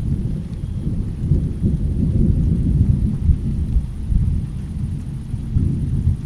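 Low rolling thunder rumbling through a rainstorm, swelling over the first few seconds and easing a little near the end, with rain faintly underneath.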